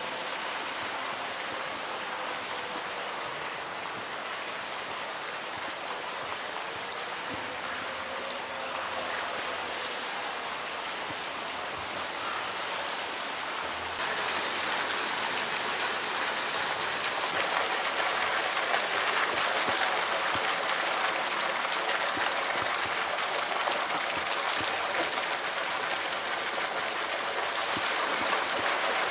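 Steady rush of water splashing into a polar bear pool, getting suddenly louder about halfway through.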